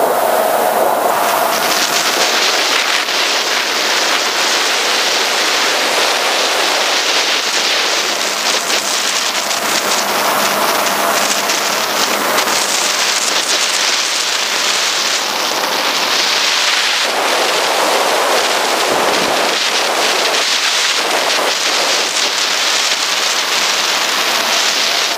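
FPV racing quadcopter diving, its propellers and the rushing air making a steady, dense, crackling hiss on the onboard camera's microphone.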